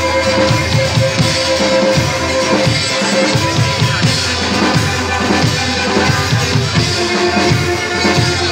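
A live band playing: violin holding and playing melody notes over a steady drum-kit beat with bass drum and snare.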